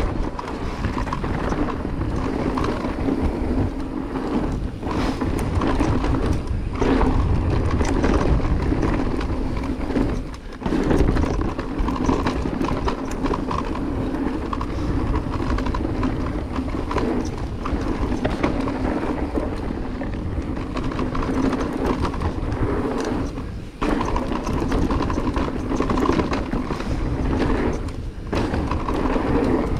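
Riding noise of a Cube Stereo Hybrid 140 electric mountain bike running down a dirt trail: tyres rolling over the dirt and the bike jolting over bumps. It is steady and loud, with a few short dips.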